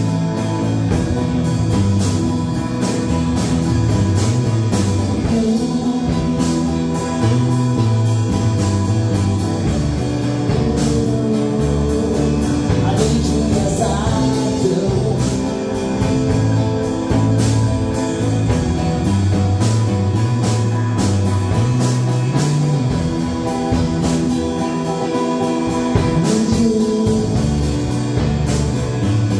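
Live rock band playing an acoustic-style song: strummed acoustic guitars, an electric guitar and a drum kit keeping a steady beat, with a man singing.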